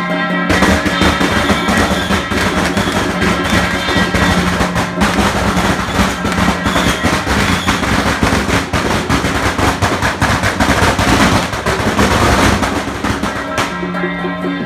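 A long string of firecrackers crackling in a rapid, unbroken stream, starting abruptly about half a second in and stopping shortly before the end, over procession music.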